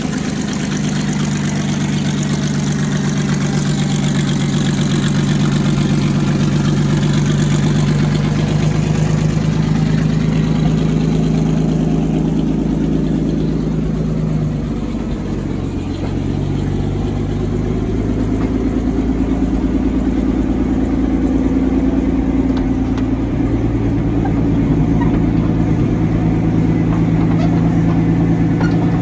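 A Panther Ausf A tank's Maybach HL230 V12 petrol engine idling steadily. About halfway through, the sound briefly dips and the pitch of the engine note shifts a little.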